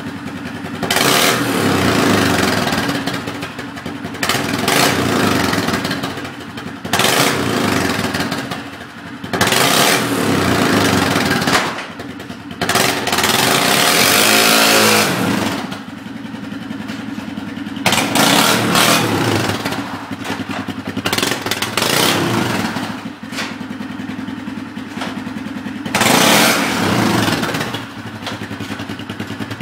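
Polaris Sportsman 500 ATV's single-cylinder four-stroke engine through a custom modified exhaust, accelerating hard in repeated bursts of one to three seconds and dropping back towards idle between them. About midway it winds down with a falling pitch.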